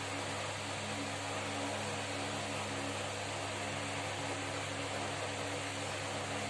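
Steady background hum with an even hiss, unchanging throughout, like a fan or similar machine running; no distinct handling sounds stand out.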